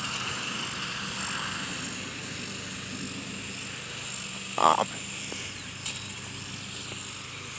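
Steady, shrill chorus of insects over a low steady hum, with one short voice-like sound about four and a half seconds in.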